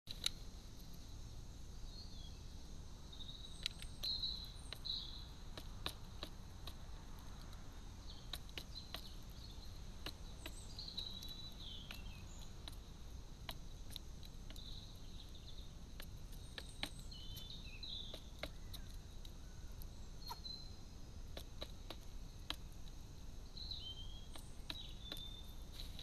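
Scattered sharp clicks of a carrion crow's beak pecking at food in a plastic feeder dish, over faint chirps and short warbling phrases from small songbirds and a low steady background noise.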